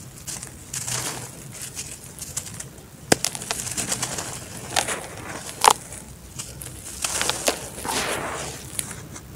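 Dry red dirt chunks crumbled and rubbed by hand in a plastic basin: a gritty, sandy rustle that rises and falls as the hands work, with a few sharp cracks as lumps break, the loudest about three seconds in and again just before six seconds.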